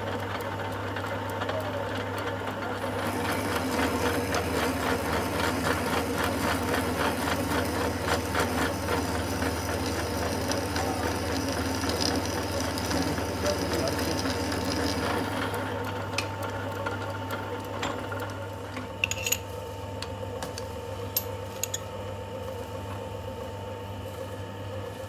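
Metal lathe running with a steel nut spinning in its four-jaw chuck while the cutting tool works inside the bore, giving a rhythmic cutting chatter over the motor's steady hum for the first half. After about 15 seconds the cutting noise stops and a few sharp metallic clinks follow.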